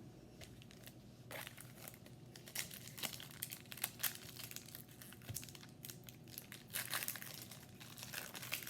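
Crinkling and rustling of a foil trading-card pack wrapper and the cards being handled, a quick run of small crackles starting about a second in.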